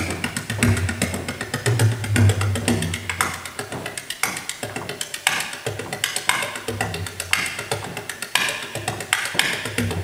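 Bodhrán (Irish frame drum) played solo in a rapid, unbroken run of strokes. Deep bass notes in the first few seconds give way to higher, brighter strokes later.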